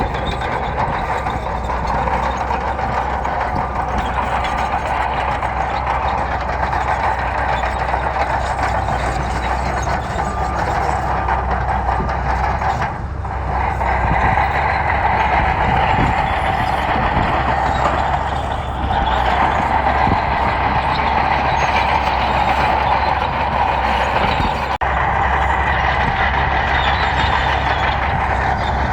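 Heavy diesel earthmoving machinery running steadily under load, a low rumble with a constant high whine over it, dipping briefly about 13 and 19 seconds in.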